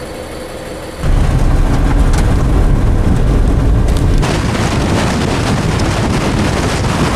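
Storm wind rushing and buffeting the microphone, starting suddenly about a second in with a heavy low rumble, easing about four seconds in to a steady hiss of wind and rain.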